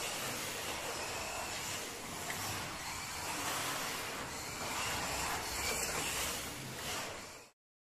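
Homemade 1:24 Jaguar XJR9 slot car lapping a large multi-lane track: a steady electric motor whine and rolling noise that swells and fades as the car goes round, cutting off abruptly near the end.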